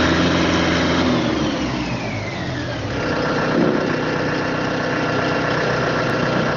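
Yanmar tractor's diesel engine running at idle, a high whine falling in pitch over the first few seconds and then settling to a steady idle.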